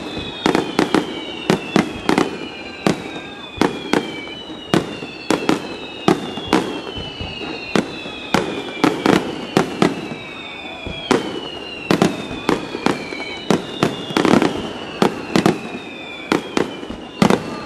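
Aerial firework shells bursting in quick succession, a rapid string of sharp bangs two or three a second. Many high whistles slowly falling in pitch overlap the bangs throughout.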